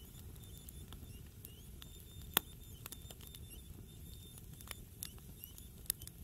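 Log campfire burning, with steady crackling and irregular sharp pops of the wood, one loud pop about two and a half seconds in.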